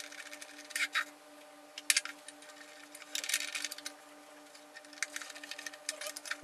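A small screwdriver driving screws through metal mounting brackets into a 2.5-inch SSD: bunches of quick metallic clicks and scrapes, four times, over a faint steady hum.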